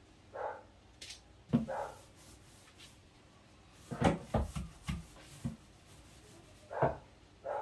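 Paintbrush rubbing and knocking against wooden cabinet shelves and the paint tray, with a run of sharp knocks about four to five and a half seconds in. Several short mid-pitched yelps come and go in between.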